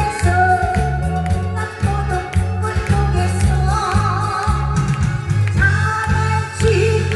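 Woman singing into a microphone through a PA system in a thick, throaty voice, over an amplified backing track with a steady beat.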